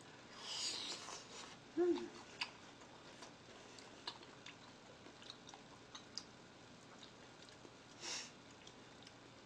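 Close-miked chewing of cooked shabu-shabu food, with small wet mouth clicks. There is a soft noisy bite or slurp just after the start, a brief hummed "mm" about two seconds in, and a short breathy burst near the end.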